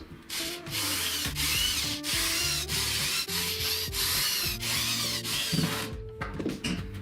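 Wood being sanded in a run of quick back-and-forth strokes, about two to three a second, stopping about a second before the end.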